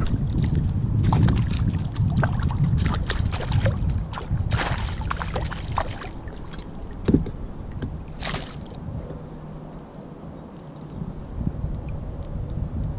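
Hooked largemouth bass splashing at the surface beside a kayak: a run of short splashes and water slaps, then a sharp knock about seven seconds in and one more splash just after. Low wind rumble on the microphone underneath eases after about eight seconds.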